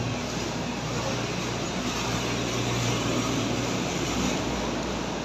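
Steady low hum of basement ventilation machinery, with an even rushing of air over it.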